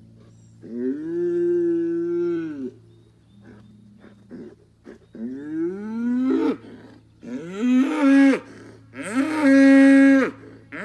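Young Angus-bred bull bellowing four times in long, drawn-out calls, the later ones rising in pitch at the start and the last the loudest: the bellowing of an angry bull.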